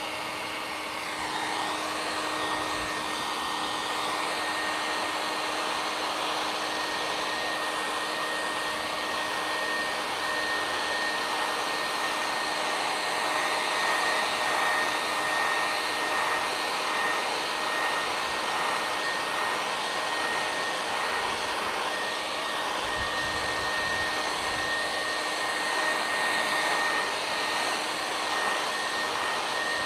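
Conair handheld hair dryer running steadily on spray paint on a stencilled canvas: an even rush of blown air with a constant high whine.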